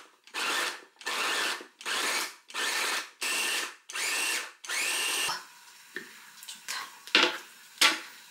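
Small electric chopper run in short pulses, about seven half-second bursts of motor whirring in quick succession, grinding a chunk of Parmigiano Reggiano; then a few light knocks.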